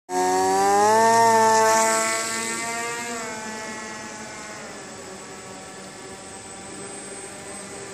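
Small electric motor and propeller of a foam RC plane whining at high throttle. The whine starts suddenly and rises in pitch about a second in, then fades steadily over the next few seconds as the plane flies away.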